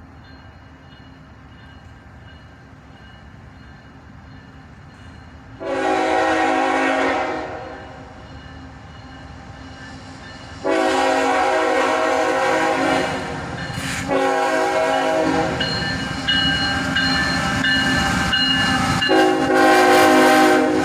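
A diesel locomotive's air horn sounding the grade-crossing signal as the train approaches: long, long, short, then a final long blast that is still sounding at the end. Between and under the blasts the rumble of the approaching train builds.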